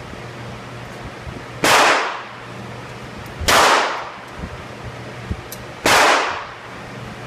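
Three loud gunshots about two seconds apart, each trailing off in a short echo, with faint distant shots between them.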